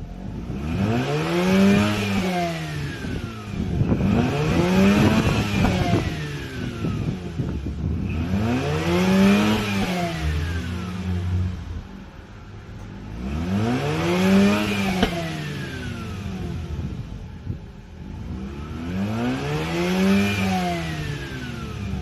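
Mazda RX-8's twin-rotor Renesis rotary engine being revved five times. Each blip rises in pitch and falls back toward idle between revs, as it burns off a Seafoam cleaning treatment.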